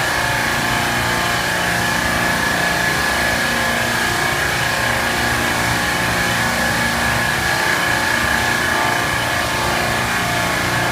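Steady mechanical running noise with a constant high whine and a lower hum, unchanging throughout.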